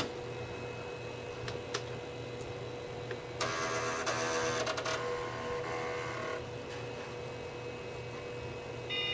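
Floppy drive heads stepping during a Packard Bell 386's power-on self-test: a buzzing mechanical grind that starts about a third of the way in, is loudest for about a second and a half, then fades out. A shorter buzz comes near the end, over the computer's steady hum.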